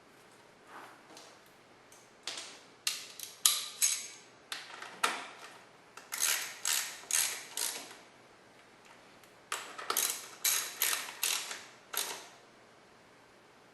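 Hand ratchet wrench working a bolt in three runs of quick rasping strokes, about two a second, with short pauses between runs.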